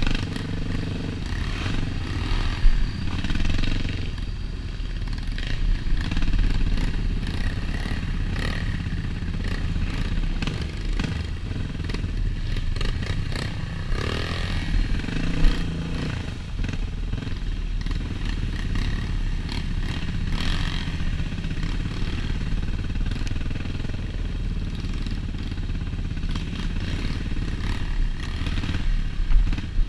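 Dirt bike engine running at low speed on a rough trail, heard from on the bike, with the revs rising and falling and a couple of sharp knocks and clatter as it goes over bumps.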